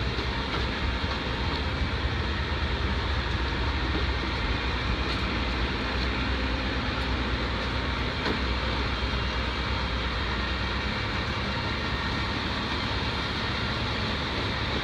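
Steady running noise of a work truck's machinery, a deep rumble under a broad hiss; the low rumble drops off about eleven seconds in.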